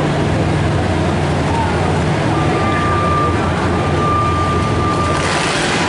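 Demolition derby cars' engines running together in a steady low rumble. A thin, steady high tone sounds for about three seconds through the middle.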